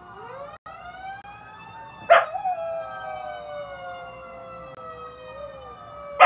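A fire-truck siren wails, rising over the first two seconds and then holding and slowly falling, while a one-year-old mixed-breed dog howls along with it. A sharp loud cry from the dog comes about two seconds in, and two more come close together near the end.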